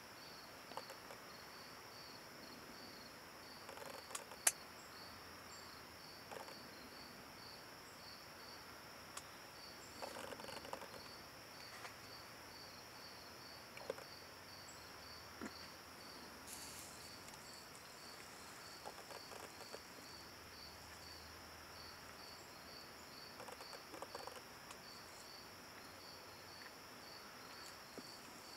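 Insects chirping in a steady, even pulse, about two or three chirps a second, high-pitched and faint. A few soft clicks and rustles are scattered through it, with one sharp click about four seconds in.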